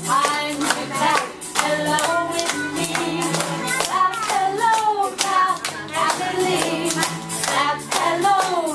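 Voices singing a children's song, with several people clapping their hands along to a steady beat.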